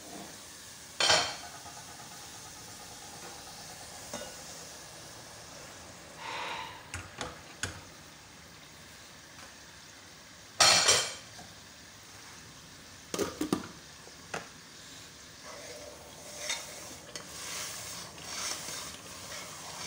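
Pot lids and metal utensils clanking against aluminium and steel pots, with a few loud knocks. Near the end a metal ladle stirs and scrapes tomato paste frying in oil, which sizzles.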